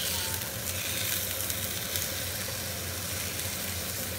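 Seasoned chicken breasts sizzling in a hot nonstick frying pan: a steady frying hiss with fine crackling, over a low steady hum.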